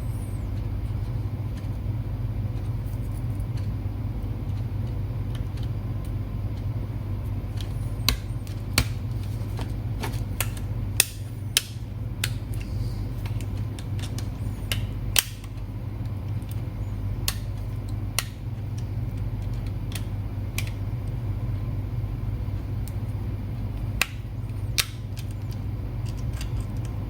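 Scattered sharp clicks and taps of small hard laptop parts being handled and fitted during a drive and hard-disk-caddy installation. The clicks are irregular and mostly in the middle and near the end, over a steady low hum.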